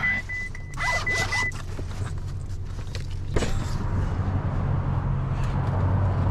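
Ferrari 488 GTB's warning chime beeping rapidly at one pitch for about a second and a half, then the driver's door latch clicking open about three seconds in.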